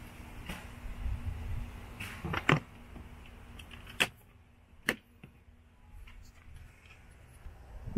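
Plastic dashboard trim panel on a Tesla Model 3 being pressed back into place by hand, giving a handful of sharp clicks and knocks as its clips seat. The loudest is a quick cluster about two and a half seconds in.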